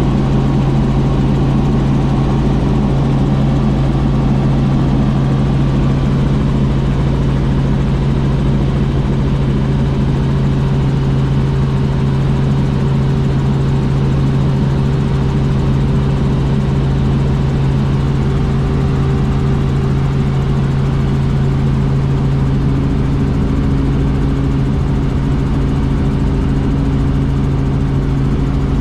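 Light helicopter's engine and rotor heard from inside the cabin in flight: a steady drone with a strong low hum.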